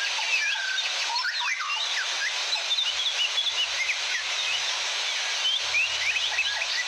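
A dense chorus of small songbirds, many quick chirps and short whistled glides overlapping one another, over the steady splashing rush of a waterfall.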